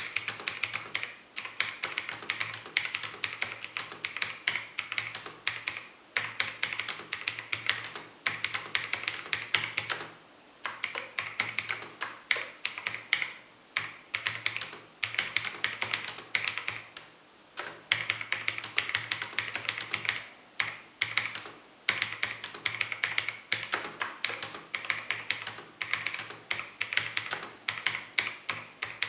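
Fast typing on a mechanical keyboard with Longhua Blue clicky switches and thin ABS keycaps: a dense stream of sharp clicks in runs, with short pauses every few seconds.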